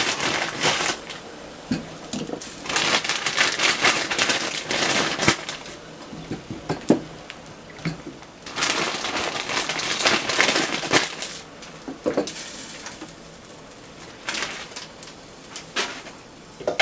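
Frozen cassava being put into a pot of boiling water: two long bursts of crackling and rustling, with a few shorter ones and scattered knocks.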